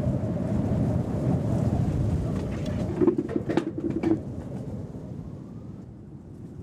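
Recorded height soundscape: a steady low wind rumble that eases off over the last couple of seconds. About three seconds in, a quick run of pulsed calls lasts about a second, among a few clicks.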